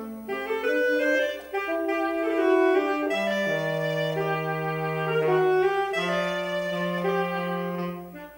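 Saxophone duet playing a slow melody in two parts. From about three seconds in, the lower saxophone holds long low notes under the upper line, and the phrase fades near the end.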